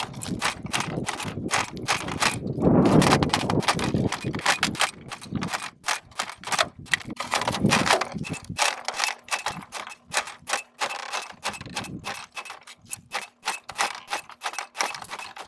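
Hammer blows on steel, struck again and again in quick succession, driving worn ball bearings off the rotor shaft and end bell of a 10 hp three-phase electric motor.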